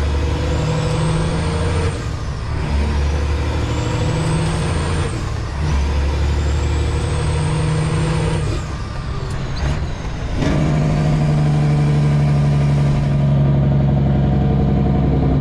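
A Freightliner Classic's Detroit Diesel 12.7-litre engine pulling through the gears, heard inside the cab. The engine note breaks off briefly at each of three upshifts, and a high whine climbs with the revs in each gear. The engine runs smoothly, a "purr" to the owner, on a fresh tune.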